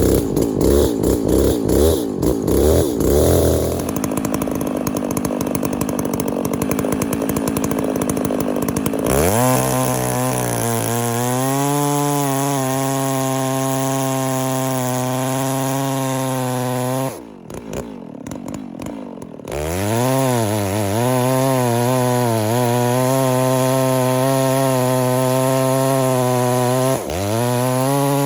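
Chainsaw with a new, freshly bedded-in chain running unevenly at low speed, then throttled up and held at full revs as it cuts wood. About two-thirds of the way through it drops back to idle for a couple of seconds, then goes to full revs again, with a brief dip near the end.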